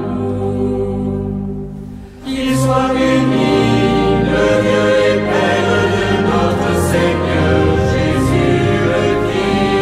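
Choir singing sacred music for Vespers: a held chord fades out about two seconds in, then the voices come back in and carry on singing.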